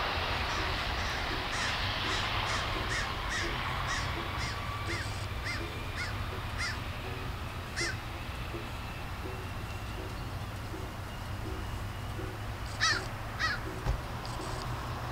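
De Havilland Canada Dash 8 Q400's Pratt & Whitney PW150A turboprops climbing away after takeoff, a broad rumble that fades slowly. A bird calls repeatedly over the first half, about twice a second, with two louder calls near the end.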